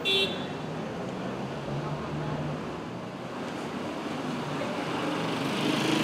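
Street traffic noise, a steady hum of vehicles that slowly grows louder toward the end, with one brief high-pitched beep at the very start.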